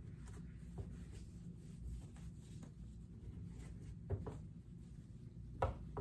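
Cloth wiping a whiteboard clean: faint, repeated rubbing strokes, with two light knocks in the second half.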